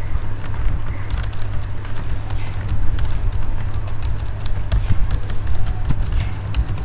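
Computer keyboard being typed on, a run of irregular key clicks over a steady low electrical hum.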